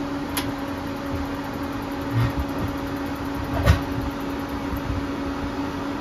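Non-ducted RV propane furnace running, its blower humming steadily. A faint click comes early on, and a short knock a little over halfway through is the loudest sound.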